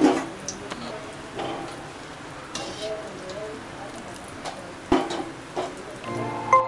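A bread-crumb-coated cheese ball deep-frying in hot oil in an iron kadai: steady sizzling and bubbling of the oil around it. A sharp knock comes right at the start, and another comes about five seconds in.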